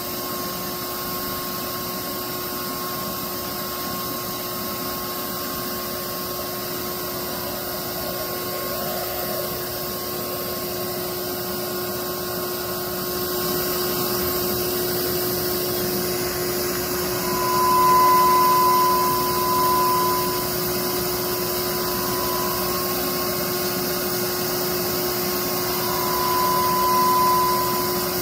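Bee vacuum's motor running steadily with a constant whine, sucking up a swarm of honey bees. Its high whine swells for a couple of seconds about two-thirds of the way through and again near the end.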